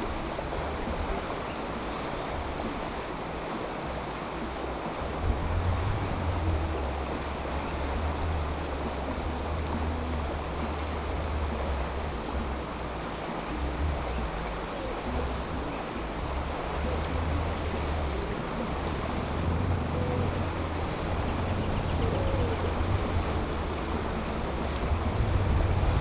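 Beach ambience: a steady high drone of insects, over a soft wash of water at the shore and wind rumbling on the microphone in uneven gusts.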